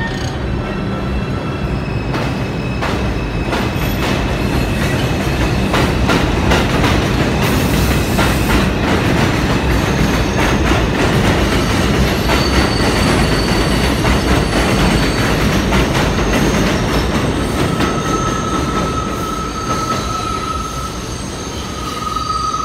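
R142 subway train moving along the elevated tracks: a steady heavy rumble with wheels clicking over rail joints, loudest midway. From about three-quarters of the way in, a steady high wheel squeal sets in and grows as a train comes round the curve.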